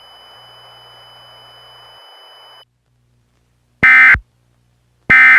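Two short, loud bursts of Emergency Alert System end-of-message data tones, about a second and a half apart, after a faint hiss that cuts off over halfway in.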